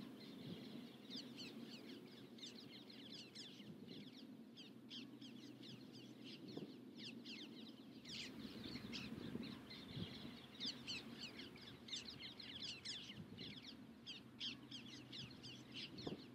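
Faint birdsong: many short, high chirps and calls from several birds, repeating throughout, over a faint low steady hum.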